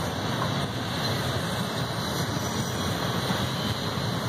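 Double-stack intermodal well cars rolling past on the rails: a steady rumble of steel wheels on track.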